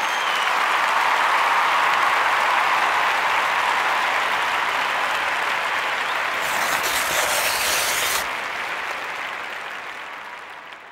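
Crowd applauding, with a brighter, hissier stretch for a couple of seconds in the middle, then fading out over the last few seconds.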